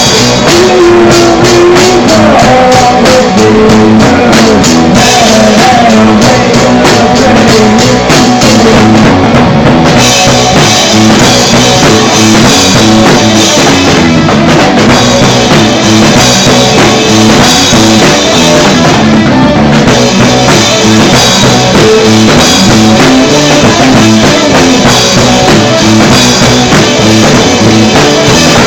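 Punk rock band playing loud: distorted electric guitar, bass and a full drum kit. A bending guitar line stands out in the first few seconds, and the sound gets brighter and fuller about ten seconds in.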